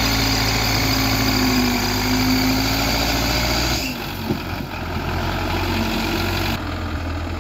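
Belarus 510 tractor's diesel engine running steadily under load as it pulls a trolley heaped with sand. The engine sound changes abruptly twice, about four and six and a half seconds in.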